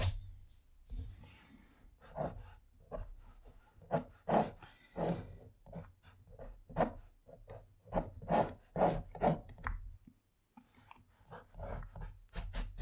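Pencil scratching on watercolour paper in a series of short separate strokes while a boat outline is sketched, with a brief pause about ten seconds in.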